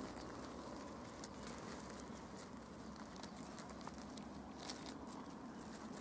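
Faint, steady outdoor background with small scattered clicks and crackles at irregular intervals.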